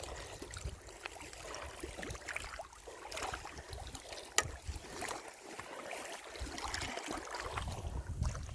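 Wind buffeting the microphone over water lapping, with scattered small ticks and one sharp click about four seconds in.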